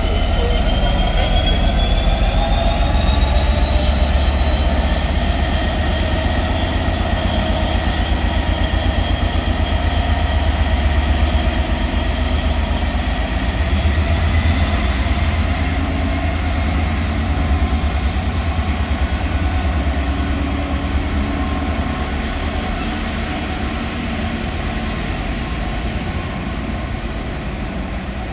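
Freightliner Class 66 diesel locomotive with its two-stroke V12 engine passing at close range, hauling a container freight train. A high whine rises in pitch over the first several seconds, and the container wagons keep up a steady rumble as they roll past, easing slightly toward the end.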